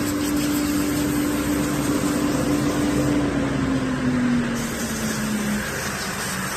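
Plastic film washing and recycling line running: a steady machine hum over a broad rushing noise, the hum dropping a little in pitch about halfway through.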